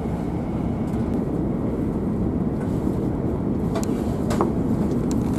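Steady low rumble of an LNER passenger train in motion, heard from inside the carriage, with two light clicks near the end.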